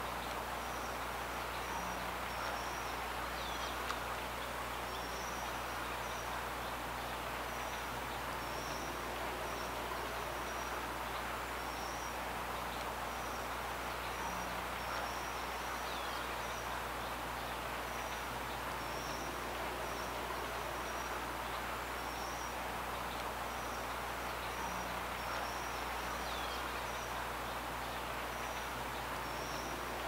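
Outdoor nature ambience: a steady hiss with small high chirps repeating about once a second and three brief falling whistles, over a faint low hum.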